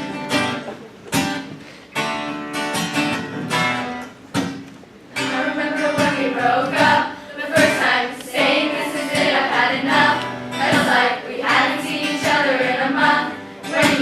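Choir singing a song to a strummed guitar; the guitar plays alone at first and the voices come in about five seconds in.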